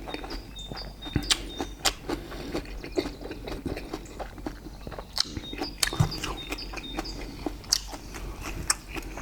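Close-miked eating sounds: wet chewing, lip smacks and many sharp mouth clicks from people eating grilled steak with sticky rice.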